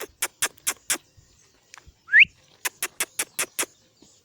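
Tongue clicks urging a horse on, a quick run of five or six followed later by another run, with a short rising whistle about two seconds in: a trainer's voice cues driving a young filly forward.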